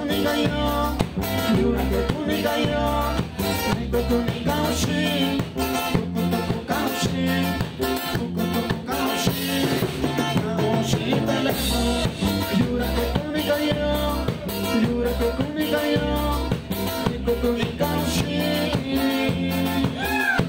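Loud dance music with a steady drum beat and a pulsing bass line under the melody.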